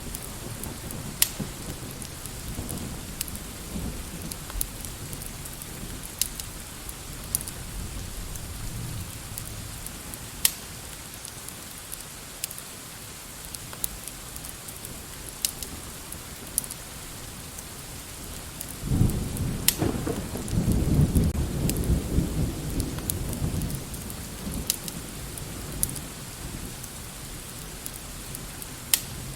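Steady rain hissing, with scattered sharp crackles and a low roll of thunder rising about two-thirds of the way through and fading after a few seconds.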